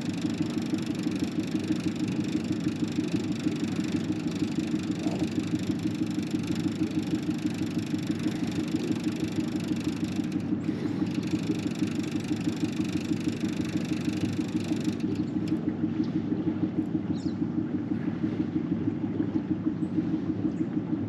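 Outboard motor of a fishing boat running steadily, with a fast, even pulse.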